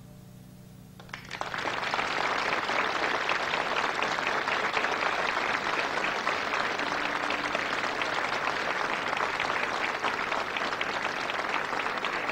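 The song's last low note fades out, and about a second in an audience breaks into applause, clapping steadily and densely.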